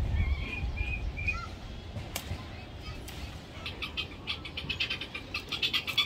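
Outdoor animal calls: short high bird chirps in the first second or so, then from about three and a half seconds a fast run of clicking calls, about six a second.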